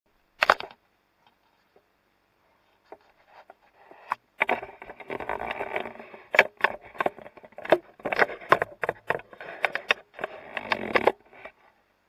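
Handling noise on the camera: a sharp knock at the start, then a dense run of clicks, knocks and scraping as the camera's handle mount is gripped and adjusted. It stops about a second before the end.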